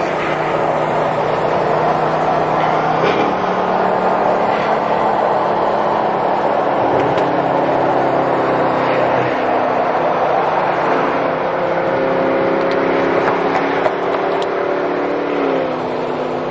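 Car engine running steadily under a dense wash of road or traffic noise, its pitch dropping a little near the end.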